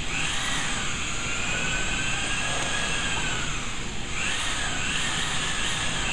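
Electric pottery wheel's motor whining as the wheel head spins, the pitch drifting up and down with the speed; it drops out briefly about four seconds in, then picks up again.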